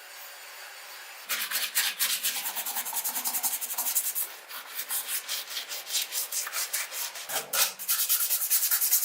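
Rapid back-and-forth rubbing strokes on a surface, several a second, starting about a second in.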